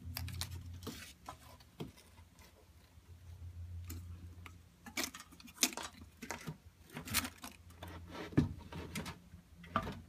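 Handling noise from a ceiling fan motor housing being gripped, turned over and set down on a wooden workbench: irregular knocks and clicks of its plastic and metal shell, with rustling of its paper warning tag.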